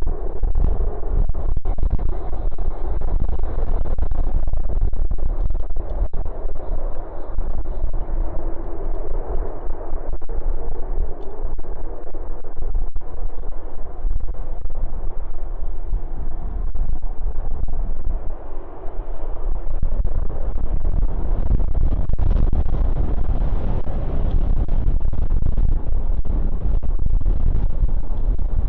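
Strong wind buffeting the phone's microphone with heavy crackling distortion, over a steady low rumble of jet aircraft engines.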